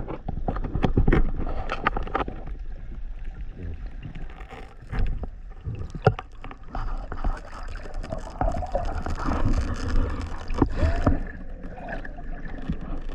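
Sea water sloshing and splashing, with scattered sharp knocks and clicks.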